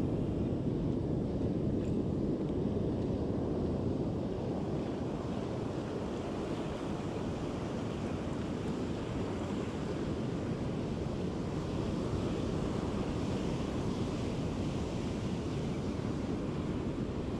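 Ocean surf breaking and washing up the beach in a steady rushing noise, with wind buffeting the microphone.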